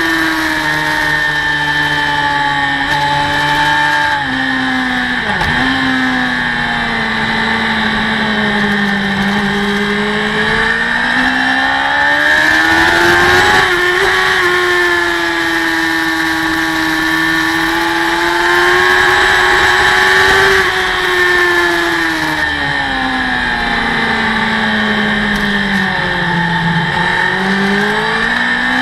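Racing motorcycle engine at speed, recorded onboard: its note sinks and climbs in long sweeps several times as the rider rolls off and gets back on the throttle, over a steady rush of wind noise.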